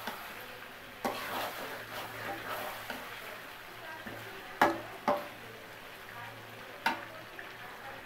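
Metal spatula stirring and scraping chicken curry in a metal karahi over a low sizzle of frying, with four sharp clacks of the spatula against the pan: one about a second in, two close together past the middle, and one near the end.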